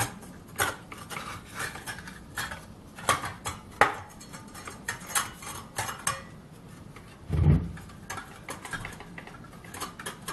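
A Black & Decker circular saw being put back together by hand after a blade swap: irregular metal clinks and clicks as the blade and parts are fitted, with one heavier thump about seven and a half seconds in.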